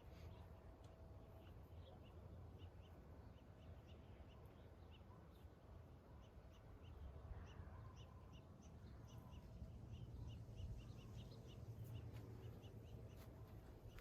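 Faint background of small birds chirping: many short, high chirps, irregular and at times several a second, over a low rumble.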